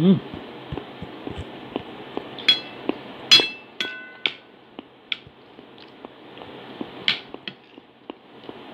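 Metal spoon clinking and scraping against a plate while eating, with a run of short ringing clinks about two and a half to four seconds in and another sharp clink near seven seconds.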